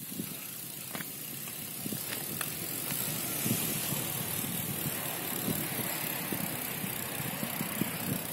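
Road bicycles rolling across asphalt: a steady rush of tyre and wind noise, with a few light clicks in the first few seconds.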